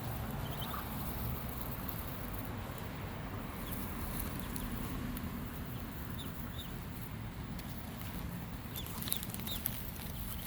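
Ducklings peeping in short, high, scattered calls over a steady low rumble, with a few sharp clicks near the end.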